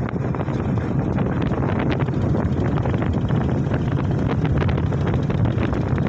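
Wind buffeting the microphone on a moving motorcycle, with the bike's engine running steadily underneath.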